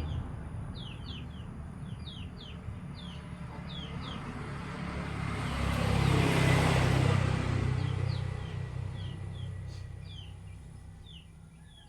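A motor vehicle passing by, its rumble growing to a peak about halfway through and then fading away, while small birds chirp repeatedly with short, falling notes.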